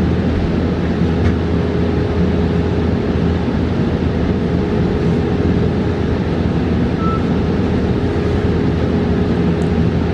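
Cabin noise inside a New Flyer XE40 battery-electric bus on the move: steady road and tyre rumble with a constant hum at one pitch.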